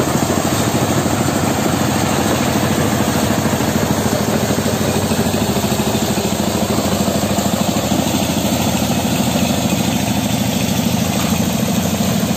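An engine running steadily at idle, a fast, even throb, a little stronger in the last few seconds.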